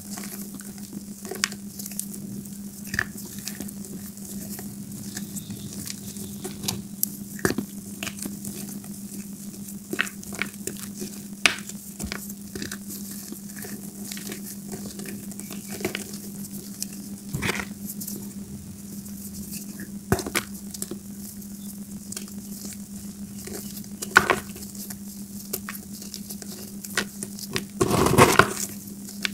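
Pressed gym chalk crumbling in a bare hand as it is squeezed, giving scattered small crisp crackles and soft crunches, with a louder burst of crunching near the end.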